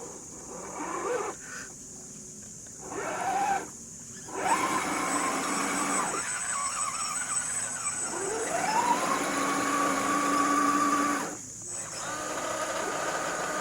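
Electric motor and gearbox of an MN128 RC crawler whining in several short bursts, each rising in pitch as it spins up. The longest comes near the end, climbing and then holding steady for a few seconds before cutting off.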